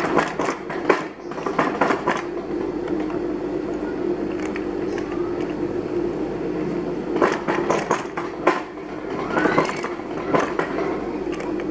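Old black sewing machine stitching without thread in short runs, its needle mechanism clattering in bursts near the start and again in the second half, over a steady hum.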